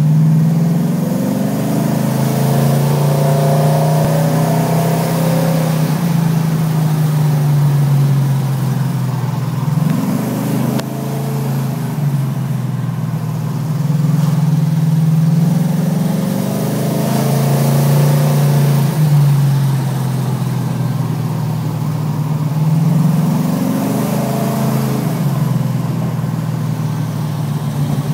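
HT Holden Monaro GTS's small-block Chevy 350 V8 on the move, heard from inside the cabin, its revs rising and falling several times with the throttle.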